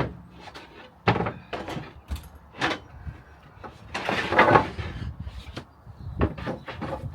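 A home-built slide-out camper bed being pulled out: a series of knocks and bumps with scraping as it slides, the longest scrape about four seconds in, and a quick cluster of knocks near the end.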